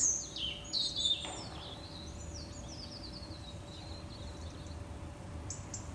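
Songbirds singing: a run of quick high chirps and short warbled phrases that thins out after about four seconds, over a faint steady low hum.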